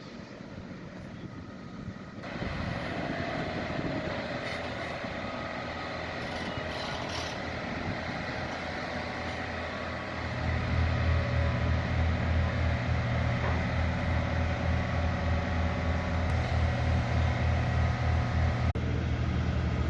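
Urban outdoor hum, then a large engine running close by from about ten seconds in with a low, evenly pulsing throb.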